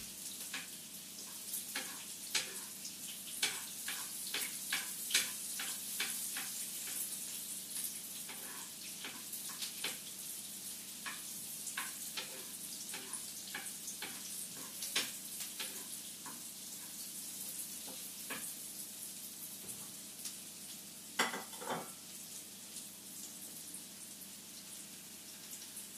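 Bread slices frying in a pan of lard, vegetable oil and a little onion, sizzling with a steady hiss and frequent crackling pops that thin out in the second half. Two louder sharp knocks come about 21 seconds in.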